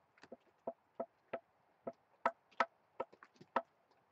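Irregular short taps and clicks, about two or three a second and varying in strength, of a nail-polish brush dabbing against a carved wooden plank.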